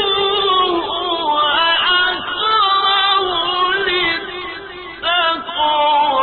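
A man reciting the Quran in a slow melodic chant, drawing out long ornamented notes, with a short pause for breath about four and a half seconds in before the next phrase.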